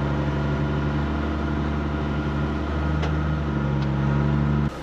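Cummins M11 diesel of an ERF EC11 lorry running at low revs, heard inside the cab, with a small rise in pitch about three seconds in. The engine sound cuts off suddenly just before the end.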